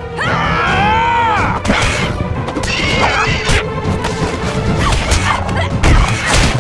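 Animated action-scene soundtrack: background music with repeated crashes and smashing impacts, and a pitched sound that rises then falls in the first second or so.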